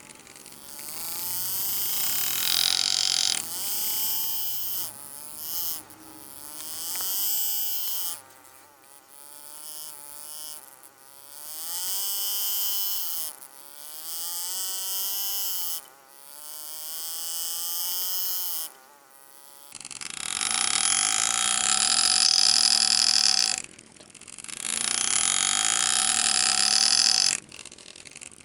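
Power engraving graver cutting steel in repeated bursts a few seconds long, each with a hissing buzz whose pitch wavers up and down as the tool speed changes.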